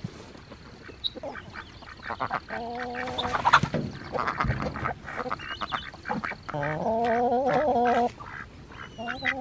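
Domestic ducks quacking, loud and nasal, in two long runs of calls: one starting about two and a half seconds in and another from about six and a half to eight seconds, with shorter calls and sharp sounds in between.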